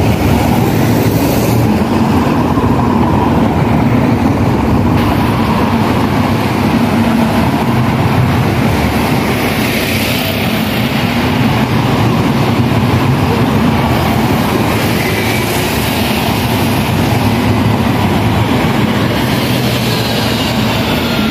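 Steady rumble of city street traffic, with buses and cars going by and no single event standing out.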